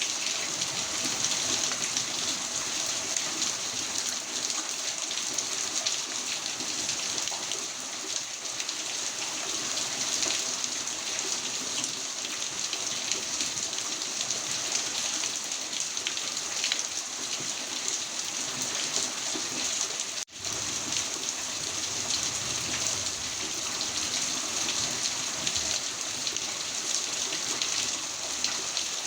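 Heavy rain falling steadily, a dense even patter of drops on surfaces. A split-second dropout about twenty seconds in breaks it.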